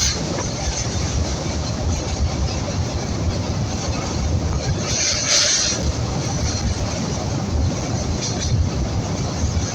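Train running across a railway bridge: a steady low rumble throughout, with a brief hiss about five seconds in.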